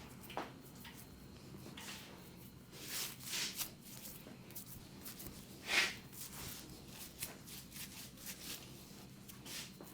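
Hands working over skin and hair in a head and neck massage: a string of soft rustles, rubs and light pats at an uneven pace, the loudest about six seconds in.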